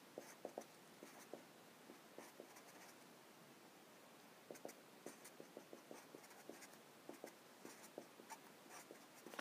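Felt-tip marker writing on paper: faint, short scratchy strokes coming in small clusters, with a quieter pause in the middle.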